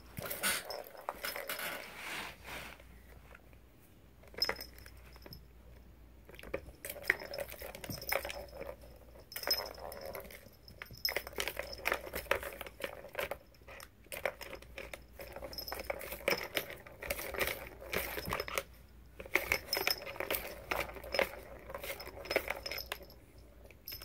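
Small plastic balls rattling and rolling around the tracks of a tiered plastic cat track toy as a cat bats at them. The sound comes in bursts of quick clicks and clatter, with short lulls between.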